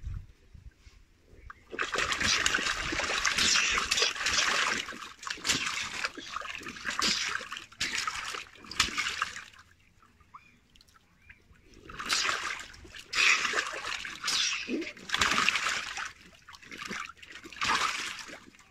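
Water splashing and sloshing in a shallow inflatable paddling pool as a child moves and kicks in it. It comes in bursts, with a lull about halfway through.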